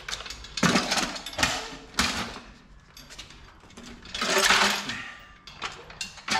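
Clanks and rattles of tools and metal parts being handled while fitting a transmission under a car: a few sharp knocks in the first two seconds, a longer scraping rattle about four seconds in, then a few light clicks near the end.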